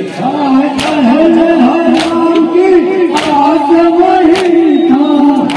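Men chanting a nauha together in a long, wavering melody. Sharp chest-beating slaps (matam) strike in time with it about every 1.2 seconds, about five times.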